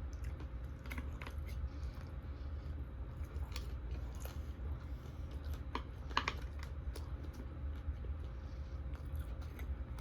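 Close-miked chewing and biting of food, with scattered crisp crunches, the loudest about six seconds in.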